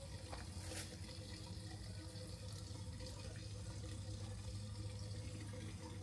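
Steady running water with a low steady hum underneath.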